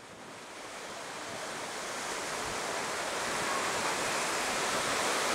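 Sea surf breaking and washing over shoreline rocks: a steady rushing that fades in, growing louder.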